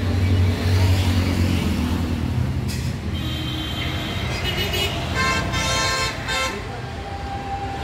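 New Holland 9010 tractor's 4-cylinder, 4000 cc diesel engine idling steadily. A horn sounds in short toots over it in the middle.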